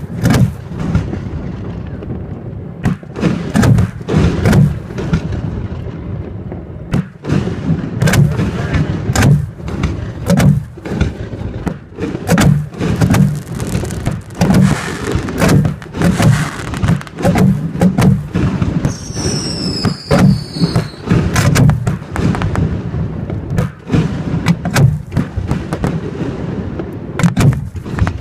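Aerial fireworks fired from mortar tubes a few feet away: a rapid, irregular barrage of loud thumps, booms and bangs from shells launching and bursting. A brief cluster of whistles comes about two-thirds of the way through.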